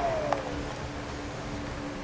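Electric heat gun spinning down after being switched off: its fan whine falls in pitch and fades over the first half second, with a small click along the way, leaving a faint steady hum.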